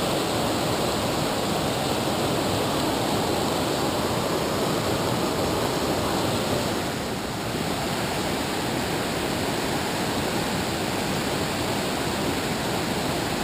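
River rapids rushing steadily, a constant wash of white water, briefly a little quieter about halfway through.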